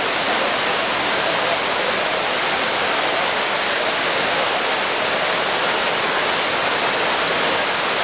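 Steady rush of a waterfall, with the stream below running over rocks.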